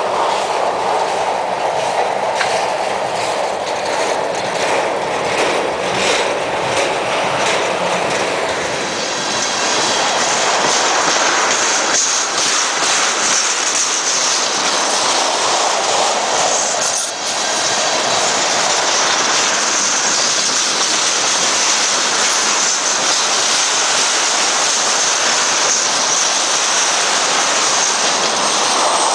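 Ethanol tank cars of a freight train rolling slowly past at close range: wheels clicking over the rail joints for the first several seconds, then a steady high-pitched wheel squeal from about nine seconds in.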